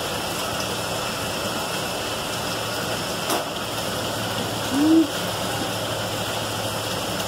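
Tap water running steadily into a stainless steel sink. About five seconds in there is a short low sound, rising then falling in pitch.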